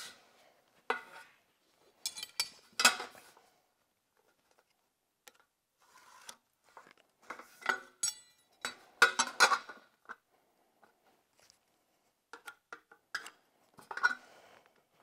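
Irregular clinks and rattles of a thin sheet-metal window trim piece being handled and lined up with a speed square, with the loudest clatters about two to three seconds in and again about nine seconds in.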